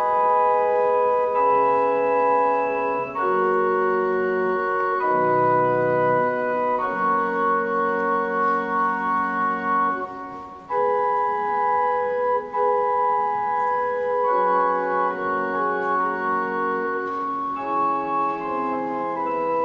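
Organ playing slow, held chords that change every second or two, with a brief drop in level about halfway through.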